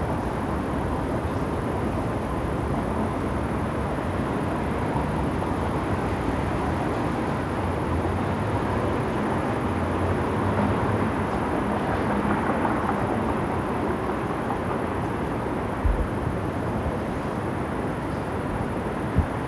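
City ambience: a steady rumble of traffic, with two short low thumps in the last few seconds.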